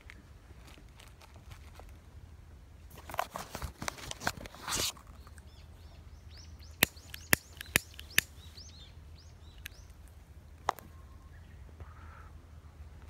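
Handling noise from an angler's rod and gear: a burst of rustling, then four sharp clicks about half a second apart and one more a few seconds later. Faint bird chirps sound in the background.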